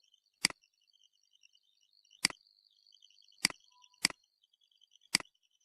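Computer mouse clicking: five separate clicks at uneven intervals, each a quick press-and-release double tick.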